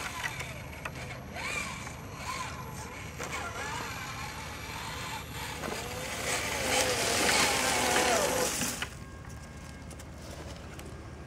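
Axial SCX RC rock crawler's electric motor and gear drivetrain whining, rising and falling in pitch with the throttle. It grows loud as the truck climbs up to the microphone, then cuts off suddenly about nine seconds in.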